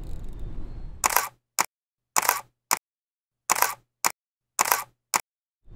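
Camera shutter sound effect, clicking four times about once a second; each shot is a click followed by a shorter second click, with dead silence between. Wind and boat noise fill the first second before it.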